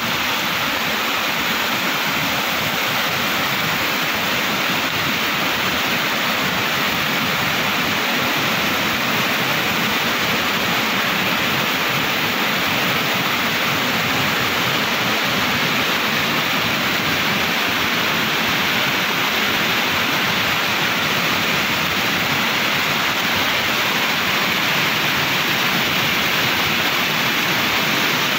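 A river in flood, muddy and swollen after heavy rain, rushing and churning around concrete bridge piers: a steady, loud rush of water.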